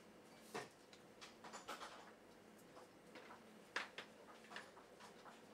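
Faint laboratory room tone with a low steady hum and scattered light clicks and taps from bench work, the sharpest about two-thirds of the way through.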